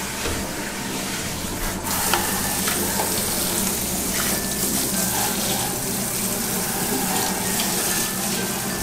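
Handheld shower spraying water: a steady hiss of running water with a few light clicks.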